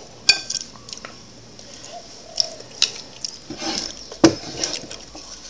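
Wooden spatula tapping and scraping against a frying pan and a glass bowl while scooping sticky ambuyat (sago starch paste), with several sharp clicks, the loudest about four seconds in.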